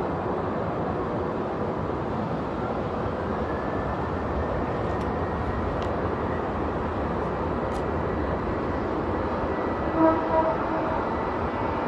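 Virgin Australia Boeing 737's jet engines running with a steady roar as the airliner rolls along the runway, with a faint whine rising in pitch from about three seconds in. Near the end, two short honk-like tones stand out above the engine noise.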